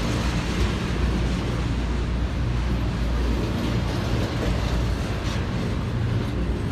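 Double-stack intermodal freight train rolling past, a steady low rumble.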